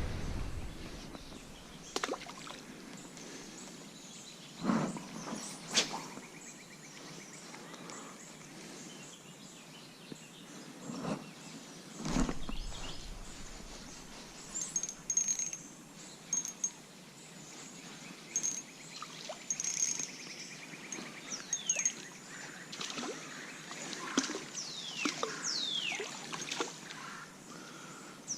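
Outdoor ambience with birds chirping: a repeated high thin chirp in the middle, then several quick falling calls near the end, over a background hush with a few scattered knocks and rustles.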